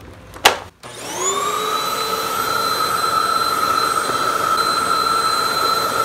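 Hoover WindTunnel upright vacuum cleaner switched on: a click about half a second in, then the motor whines up to speed within about half a second and runs steadily. The roller brush turns slowly, which the owner traces to a worn drive belt that is very likely slipping.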